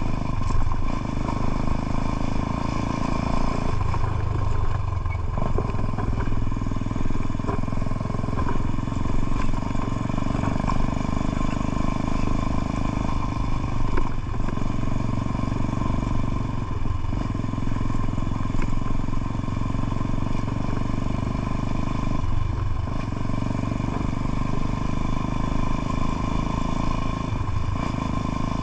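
Motorcycle engine running steadily on the move, its low note dropping out briefly several times as the throttle eases off.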